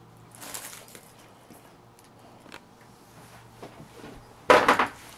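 Dog sniffing at a kitten at close range: a soft sniffing rustle early on, a few faint ticks, then a loud, quick run of sniffs or a snort about four and a half seconds in.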